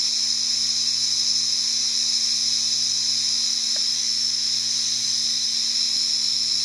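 Lawn sprinklers spraying water, a steady hiss, with a faint low hum underneath.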